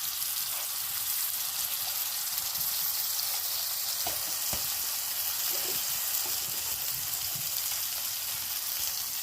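Hot cooking oil sizzling steadily in a pan, with two faint clicks of a utensil about four seconds in.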